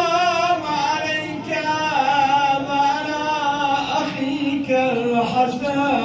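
A man's voice chanting a religious recitation through a microphone, in long melodic phrases with wavering held notes.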